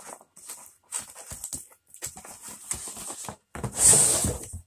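Cardboard boxes being handled: irregular rustling and scraping as an inner box is worked loose and lifted out of a larger shipping carton, with the loudest scrape about four seconds in as the box slides out.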